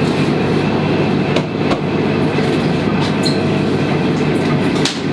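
Steady, loud mechanical hum and rumble, with a few short sharp taps of a chef's knife on a plastic cutting board as fish is sliced.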